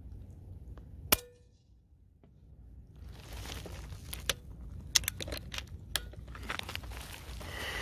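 A single sharp air rifle shot from a Diana airgun about a second in, with a brief metallic ring. After a short lull come rustling handling noise and several sharp clicks.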